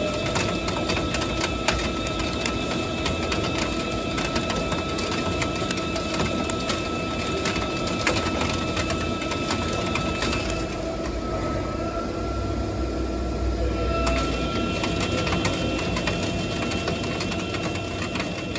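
Haas ST-40 CNC lathe turning a part under flood coolant: steady machine running with a few constant whining tones, a coolant spray hiss and a dense patter of clicks. About ten seconds in, the hiss thins and a low rumble swells for a few seconds.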